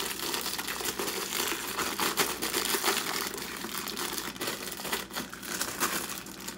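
Clear plastic bag crinkling and crackling as hands pull it off a metal hot-swap drive bay, a dense, irregular run of crackles.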